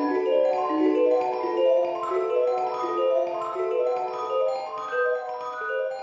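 Background music of mallet percussion (marimba, vibraphone or glockenspiel) playing a run of quick, even notes, fading toward the end.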